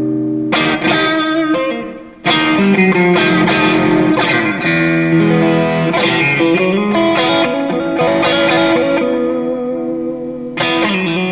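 Fender Stratocaster Deluxe Roadhouse electric guitar on the neck-and-middle pickup position (Texas Special single-coils), S-1 switch off, played through an amp: a chord rings out, then after a short break about two seconds in a run of single notes with string bends.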